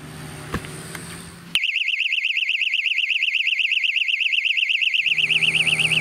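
Cyclop 2 wireless motion-sensor alarm going off when someone steps into its sensors' beam. Its high-pitched siren warbles rapidly and loudly, starting suddenly about a second and a half in.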